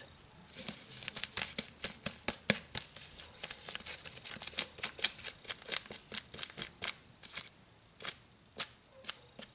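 Fingernails scratching and tapping on the wrapper of a roll of plastic garbage bags: a rapid, irregular run of crisp scratches and clicks that thins out to a few strokes near the end.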